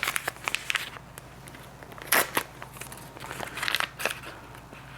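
Packaging crinkling and crackling as a pack of adhesive nasal-dilator tabs is handled and opened, with scattered small clicks and one louder rustle about two seconds in.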